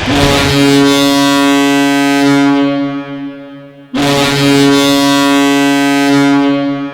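Providence Bruins hockey goal horn: a deep, loud air horn blasting twice, each blast held about two and a half seconds and then fading away.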